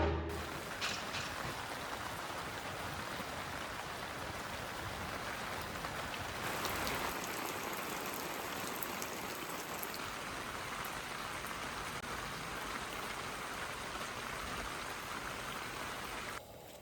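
Steady rain falling, an even hiss with a few faint drop ticks, that cuts off abruptly near the end.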